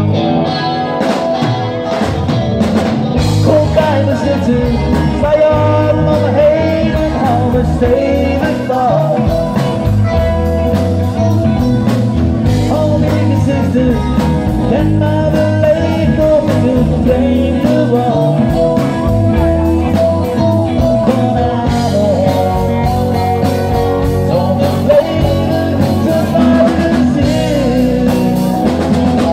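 Rock band playing live with a singer: a sung vocal line over guitar, bass and a drum kit keeping a steady beat.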